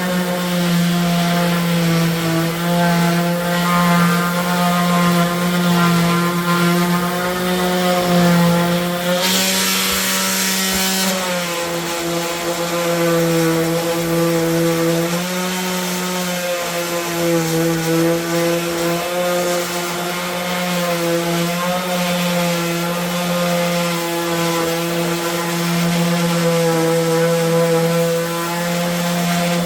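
Handheld power tool running steadily as it works the edges of the wooden nest box boards. About nine seconds in its pitch sags for a couple of seconds under load, with a louder hiss of the cut.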